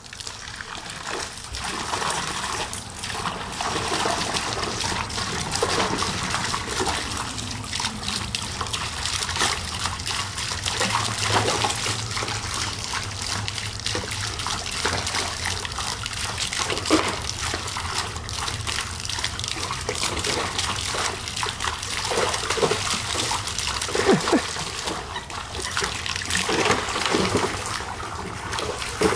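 Garden hose stream spraying and splashing steadily, with scattered sharper splashes as a dog bites at the water and splashes in a kiddie pool.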